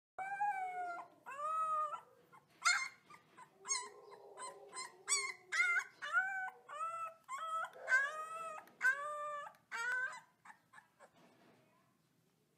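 A husky-type puppy howling: a run of about a dozen short, high-pitched howls, each rising and falling in pitch. They fade to a few faint calls after about ten seconds.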